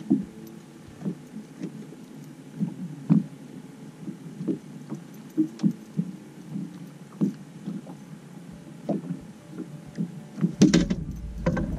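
Small lake waves slapping irregularly against a fishing boat's hull, short low knocks every second or so, with a louder knock and a low rumble near the end.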